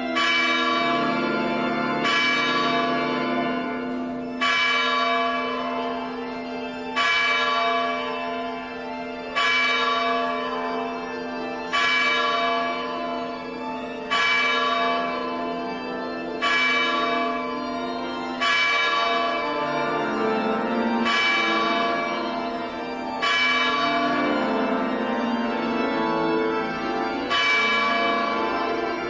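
Church bell tolling slowly and evenly, about a dozen strokes roughly two and a half seconds apart, each stroke ringing on into the next over a steady low hum.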